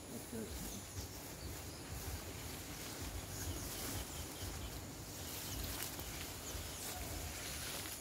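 Footsteps and leaves rustling as someone pushes through dense leafy undergrowth, over a low, uneven rumble on the microphone and a few faint bird chirps.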